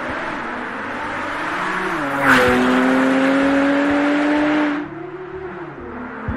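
Porsche 991.2 Turbo's twin-turbo flat-six, breathing through a Kline aftermarket exhaust, accelerating hard under full throttle. The engine note climbs, its pitch steps down with a brief burst of noise at an upshift about two seconds in, then it pulls loudly, rising again, and falls away just before five seconds.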